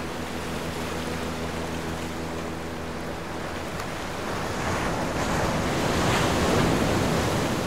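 Rushing water of a breaking, barrelling wave, growing louder in the second half, with a low steady hum underneath that fades out partway through.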